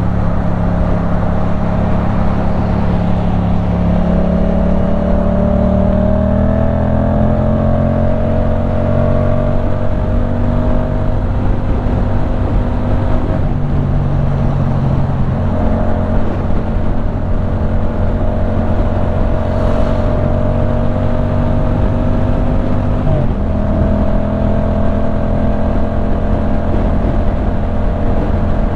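Yamaha MT-07's parallel-twin engine through a LeoVince full-system exhaust, heard from the rider's seat while riding. The note climbs slowly in pitch over several seconds, then breaks and steps twice, as with gear changes.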